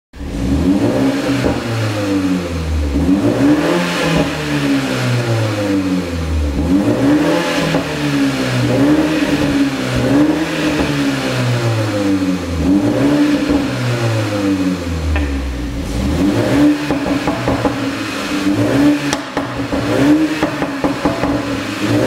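BMW 330i's turbocharged four-cylinder engine, running a pops-and-crackles exhaust tune, free-revved again and again, about one rev every second and a half, each rising and falling back. Near the end the revs settle and sharp pops and crackles come from the exhaust.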